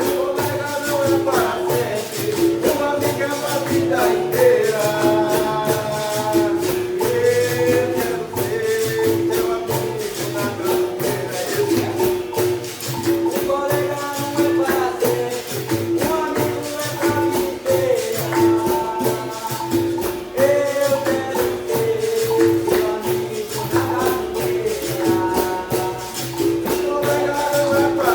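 Capoeira music: berimbau playing a repeating rhythmic pattern, with pandeiro and caxixi-style rattles keeping steady time and a voice singing in phrases that come and go.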